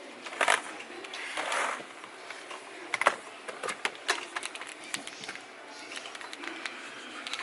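Irregular light clicks and taps, with a couple of short swishing rustles in the first two seconds.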